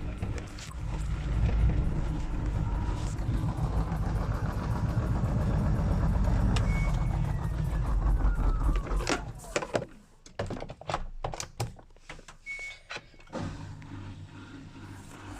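Low vehicle rumble for about nine seconds that then dies away, leaving a quick run of sharp knocks and rattles from a loose small door banging in its frame.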